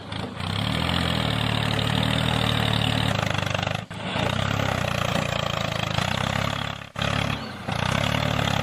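A DIY mini tractor's motor running steadily. The sound cuts out briefly twice, about four and seven seconds in, then carries on.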